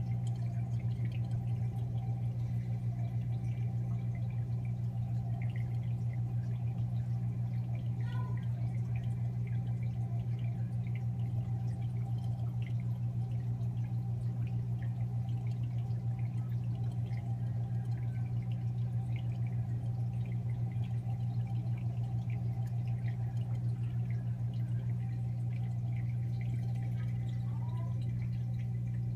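Aquarium filter or pump running: a steady low hum with water trickling and dripping over it.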